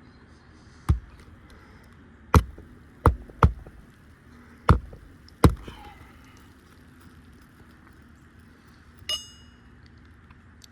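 Nails being driven into a replacement asphalt shingle on a roof: six sharp strikes spread over about five seconds, then a short metallic ring about nine seconds in.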